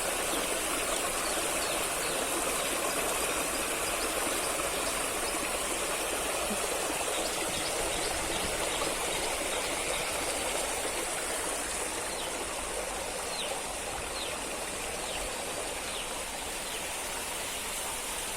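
Stream water running steadily, a continuous rush that eases a little in the second half. A few faint short chirps sound over it near the end.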